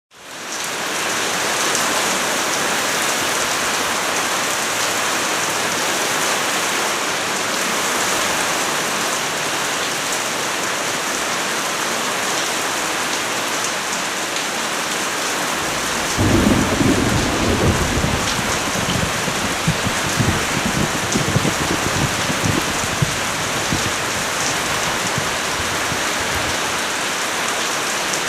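Steady rain hissing, fading in at the start. About halfway through, a roll of thunder rumbles and crackles for several seconds, then dies away under the rain.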